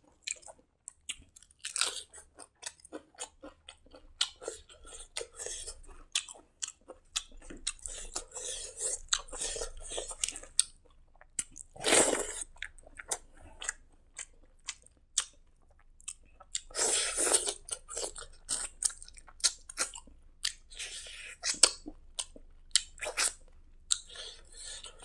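Close-miked chewing of rice and side dishes eaten by hand: quick irregular mouth clicks and smacks, with a few louder crunchy bites about 2, 12 and 17 seconds in.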